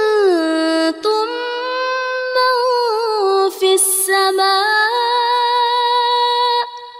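A woman's voice chanting Quran recitation in long, melodic held notes, with brief pauses for breath between phrases. The last note fades away near the end.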